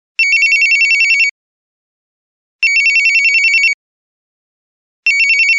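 Telephone ringing: three rings about two and a half seconds apart, each a fast warbling trill about a second long.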